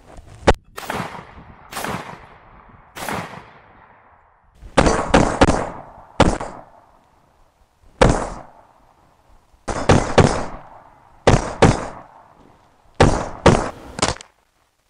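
AR-15 rifle fired semi-automatically: about fifteen single shots at uneven spacing, some in quick pairs and triples, the early ones trailing off in a long echo.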